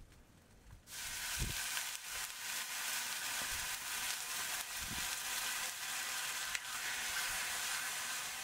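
Food sizzling in hot oil in a cooking pan. The sizzle starts suddenly about a second in and then runs on steadily, with a few soft low thuds.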